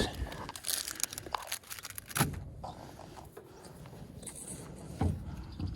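Gear being handled up close: rustling and scraping with scattered clicks, and two dull knocks, one about two seconds in and one near the end.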